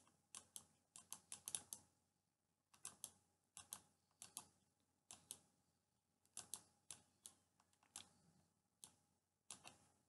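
Faint, sharp clicks of a stylus tapping a pen tablet as handwriting is drawn, coming in irregular short clusters with pauses between them.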